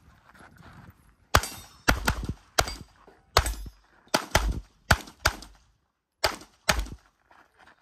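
Competition pistol fire from a Tanfoglio handgun: about ten sharp shots, mostly in quick double taps with short pauses between target groups, starting about a second and a half in.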